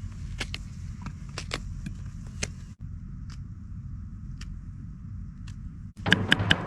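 A steady low rumble with scattered sharp clicks and knocks, broken by two abrupt cuts. Near the end, background music with a quick, even tapping beat comes in and is louder than the rest.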